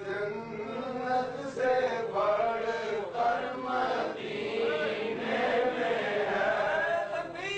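Chanted recitation of a naat, an Urdu devotional poem: a man's voice sings long, drawn-out melodic lines without a break.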